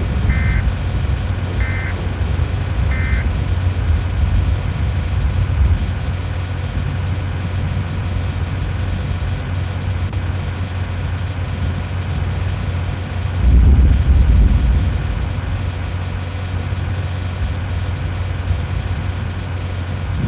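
Steady low road and engine rumble of a vehicle on the move, heard from inside, with three short high beeps about a second and a half apart near the start and a louder low swell of rumble a little past the middle.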